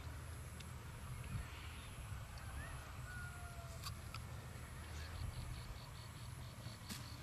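Open-air field ambience: a steady low rumble, with a few faint short bird-like whistles around the middle and scattered light clicks.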